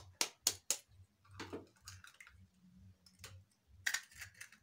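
A metal spoon tapping a raw egg three times in quick succession to crack the shell, followed later by softer crackles and clicks as the cracked shell is pried open by hand.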